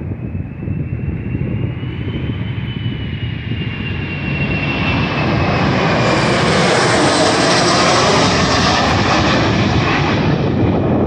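Boeing 737-400 freighter passing low overhead on approach with its gear down. Its CFM56 turbofans run with a high whine that falls in pitch as it goes by. The jet roar builds from about four seconds in and is loudest around seven to nine seconds.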